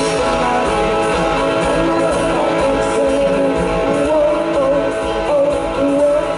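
Live rock band playing, with distorted electric guitars, bass and drums, and male vocals singing over them.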